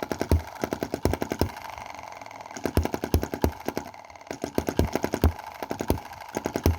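Small single-cylinder EM2 hit-and-miss model gasoline engine running lean: groups of quick firing strokes broken by gaps where it coasts without firing. These are the misfires that leave it short of power.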